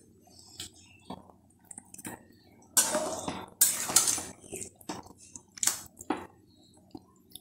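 Metal spoon scraping and clinking against a metal cooking pan while stirring marinated mutton. After a few soft taps, two longer scrapes come about halfway through, followed by a few short clinks.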